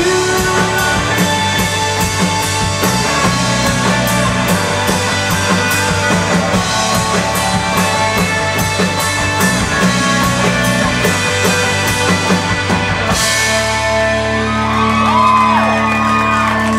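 Live rock band playing the instrumental close of a song, with guitars over a steady drum-kit beat. About thirteen seconds in, the beat stops and a final chord rings out under a cymbal wash.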